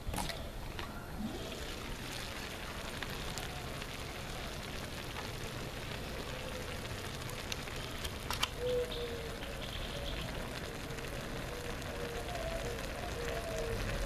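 Shrimp rice broth simmering in a steel plow-disc pan over a propane burner: a steady bubbling hiss. A sharp metal clink just after the start, as the enamel lid comes off, and a few more light clicks later.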